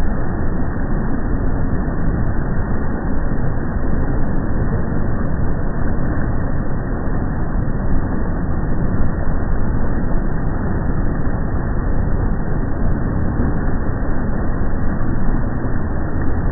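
Motorboat under way: a steady, loud rumble of the engine and the churning propeller wash.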